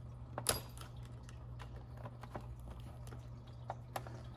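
Light, scattered clicks and taps of a small screwdriver against the plastic head mechanism and metal head spring of a Big Mouth Billy Bass singing fish as the spring is pried loose, with one sharper click about half a second in. A low steady hum runs underneath.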